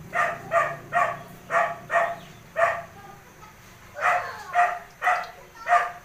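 A dog barking repeatedly with short, sharp, high barks: a run of six quick barks, a pause of about a second, then four more.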